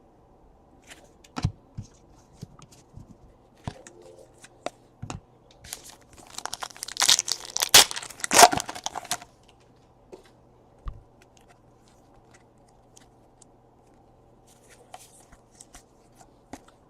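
A trading-card pack wrapper being torn open and crinkled, loudest in a stretch of a few seconds around the middle. Scattered light clicks from handling cards come before and after.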